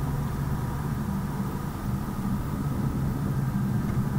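BMW M4's twin-turbo straight-six engine running at a fairly steady pitch, with road noise, heard inside the cabin.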